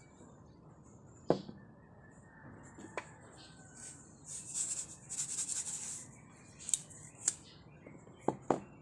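Tableware being handled on a ceramic bowl: about six sharp, separate clinks, with a stretch of hissy rustling in the middle.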